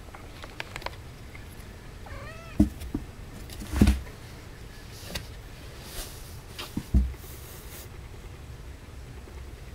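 A cat gives a quick run of about four short mews, each rising and falling, about two seconds in. Three loud dull thumps follow against the cardboard box, the loudest near the middle, as the adult cat climbs in among the two-and-a-half-week-old kittens.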